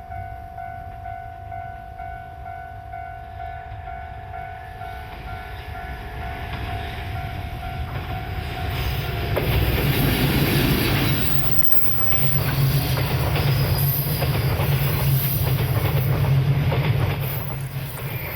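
A train approaches a level crossing and runs past loudly from about halfway through, its wheels clacking over the rail joints. Before it arrives, a level-crossing warning bell rings with a steady pulsing tone, which stops as the train passes.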